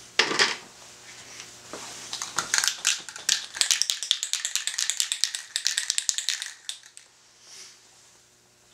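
Aerosol spray paint can being shaken, its mixing ball rattling in a fast run of clicks for about five seconds, after a short burst of noise at the start. Near the end comes a brief faint hiss of spray.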